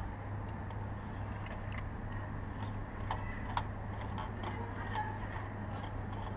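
Scattered light metallic clicks and clinks of hand tools and parts being handled at the engine, irregularly spaced, over a steady low hum.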